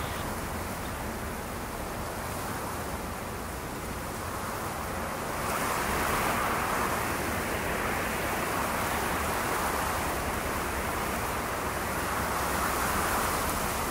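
Steady rushing of wind and sea on a sailing boat in rough weather, an even hiss with no separate events, growing louder about five and a half seconds in.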